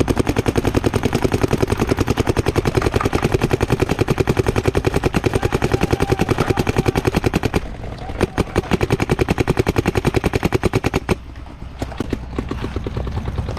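Paintball marker firing a long, rapid stream of shots, pausing briefly, firing a second rapid burst, then a few scattered single shots near the end.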